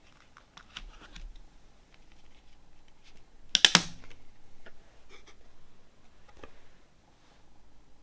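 Digipak CD case being handled on a table: small taps and clicks of plastic and card, then a loud cluster of sharp plastic clicks a little over three and a half seconds in as a CD is pressed and snapped off the tray's centre hub.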